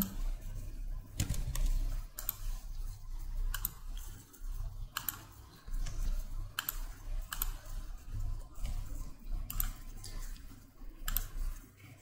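Scattered clicks of a computer mouse and keyboard, about a dozen at irregular intervals, over a faint low hum.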